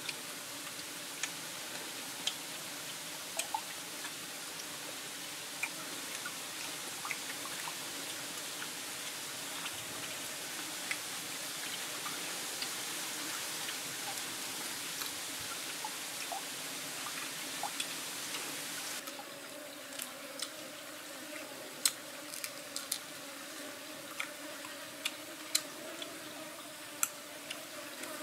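Shallow stream trickling steadily over rocks, with scattered sharp clicks that come more often and louder near the end.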